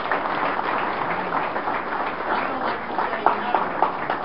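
Audience clapping, a dense patter of many hands in a room, with a few separate claps standing out near the end.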